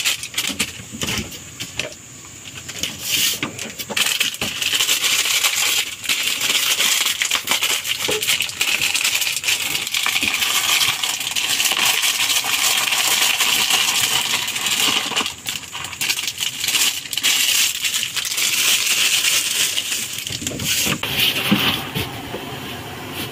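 A block of dry instant noodles being crushed and broken up by hand, a dense crackle of snapping pieces that rattle into a plastic tub. There is a short lull about two seconds in.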